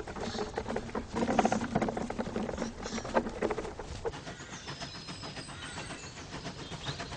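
Footsteps rustling and pattering through grass and undergrowth for the first four seconds or so, then a quieter stretch with a few faint high chirps.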